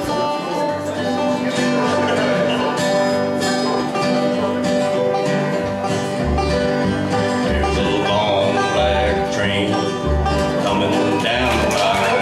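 Bluegrass band playing a country gospel song in the key of G: banjo, acoustic guitar, mandolin, fiddle and upright bass together, with the upright bass notes coming in strongly about six seconds in.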